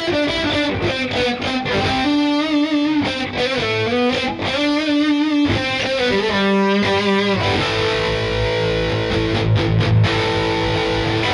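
Active-pickup LTD EC-401FM electric guitar played through heavy distortion: a single-note lead line with vibrato and bends, then low sustained chords from about seven seconds in.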